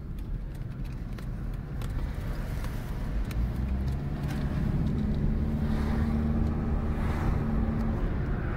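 Car engine and road noise heard from inside the cabin, growing louder as the car gathers speed, with a steady engine hum settling in about halfway through.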